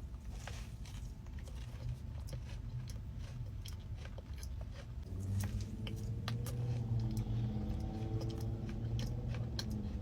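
Close-miked sounds of a person chewing and crunching food, with many short clicks. A low pitched hum joins about halfway through.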